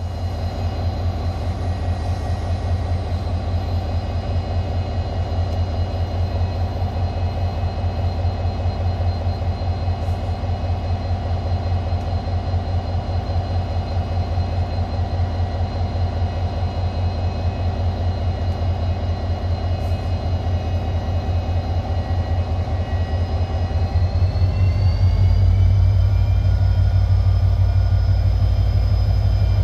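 KiwiRail DFB-class diesel-electric locomotive idling with a steady, low, pulsing engine drone. About 24 seconds in, the engine revs up, its pitch rising and the drone growing louder, as the locomotive powers up and starts to pull away.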